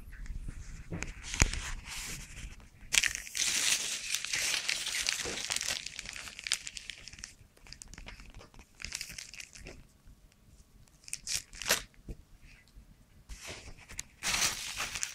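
Clear plastic bag and packaging crinkling and rustling as they are handled, in bursts with short pauses, the longest stretch lasting about four seconds. One sharp knock comes about a second and a half in.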